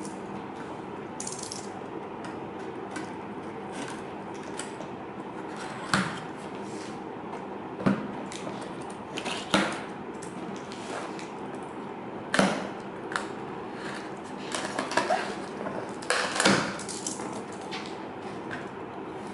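A cardboard shipping box being opened: a utility knife slitting its packing tape and the cardboard flaps pulled apart, heard as several sharp scrapes and rips over a steady background hum.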